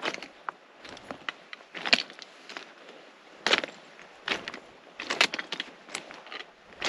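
Footsteps of a hiker crunching irregularly, each step a short crackling crunch.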